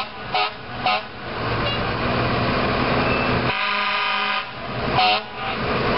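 Fire truck horns sounding as the trucks pass at parade pace: three short toots in the first second, a longer blast of about a second midway, and one more short toot near the end, over the rumble of the trucks' engines.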